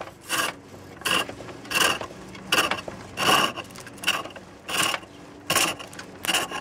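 A wide flat chisel, used like a large skew chisel, is cutting even shavings off a spinning ash blank on a foot-driven pole lathe. The cutting comes in regular rasping bursts, about one every three-quarters of a second, with short pauses between them.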